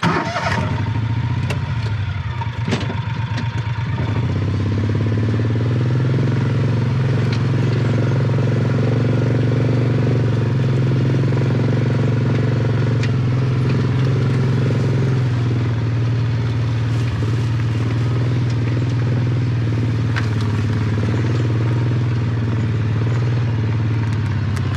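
Gator utility vehicle driving uphill on a dirt forest trail, its engine running steadily under load and picking up about four seconds in. Scattered clicks and rattles come from the vehicle jolting over the ground.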